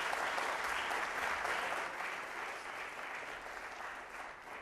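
Audience applauding, the clapping holding steady and then dying down over the last couple of seconds.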